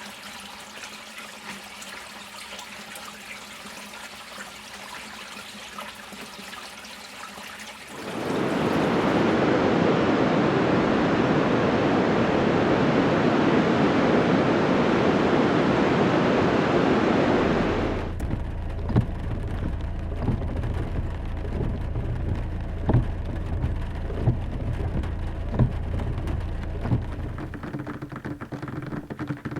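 A run of water recordings: a faint steady wash, then about 8 s in a loud, even rush of water that cuts off about 18 s in. It gives way to a low rumble with scattered sharp drips.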